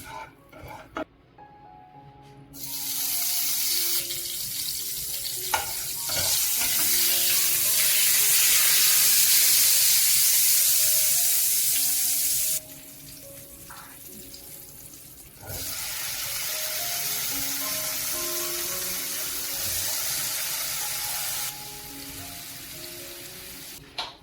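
Loud sizzling hiss of food frying in a pan, in two long stretches that start and stop abruptly, with a couple of utensil clinks, over background music.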